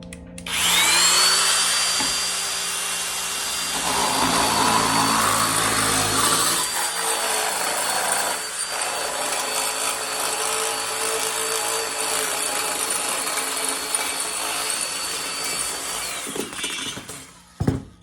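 High-speed handheld power tool working sheet metal. It spins up quickly to a steady high whine, runs for about fifteen seconds with the load changing as it works, then shuts off and winds down. A few clattering knocks come near the end.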